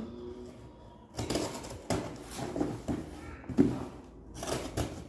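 Small knife cutting open a package and the packaging being handled: a series of short scraping, rustling strokes starting about a second in, with a couple of sharp knocks.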